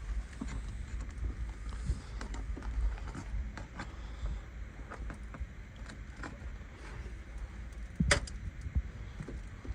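Scattered clicks, taps and scrapes of hand work on asphalt roof shingles, with one sharper crack about eight seconds in, over a steady low rumble.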